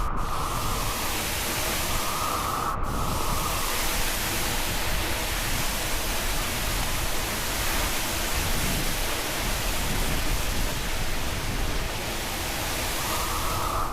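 Steady rushing noise of a tall waterfall, about 80 metres high, plunging into its pool, with a momentary break in the sound about three seconds in.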